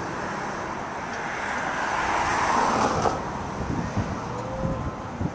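Road traffic on a bridge: cars going by, their tyre and engine noise swelling to a peak about halfway through and then easing off.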